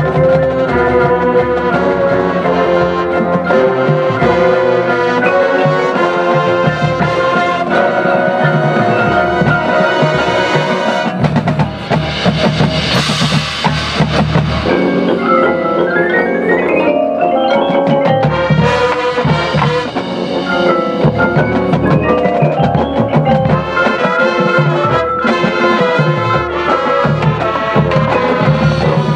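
High school marching band playing live: brass with front-ensemble mallet percussion such as marimbas, and drums. A swell of hissing noise comes near the middle, followed by a rising glide in pitch.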